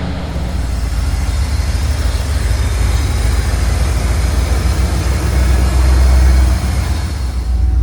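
1993 Ford F-150 SVT Lightning's 5.8-litre V8 running, a steady low engine note that grows louder over the first six seconds and dips briefly near the end.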